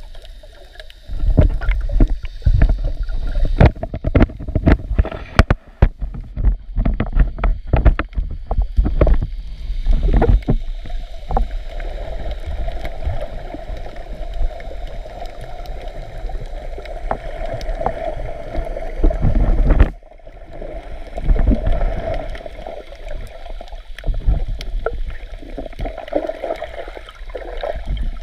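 Underwater sound recorded through an action camera's waterproof housing while snorkelling: a muffled rumble and sloshing of water, with a run of clicks and knocks through roughly the first ten seconds, then steadier.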